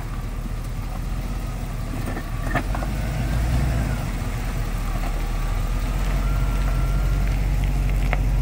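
Vehicle engine running at low speed as it crawls over a rutted, rocky dirt track, a steady low rumble that slowly grows louder, with a few short knocks about two seconds in and again near the end.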